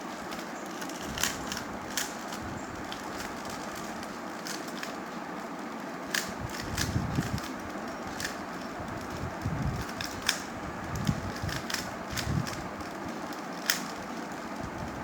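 Plastic 3x3 Rubik's Cube being turned by hand, its layers clicking at an irregular pace over a steady background hiss, with a few low muffled bumps near the middle.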